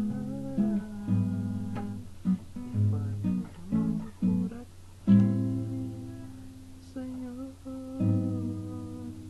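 Acoustic guitar strumming and picking chords, each ringing and dying away. A last chord about eight seconds in is left to ring out and fade.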